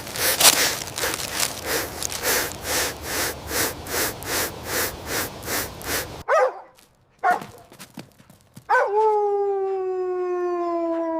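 Animal sounds: a rapid run of rhythmic noisy pulses, about three a second, then after a sudden cut two short cries and one long call held for about three seconds, its pitch sinking slightly before it stops.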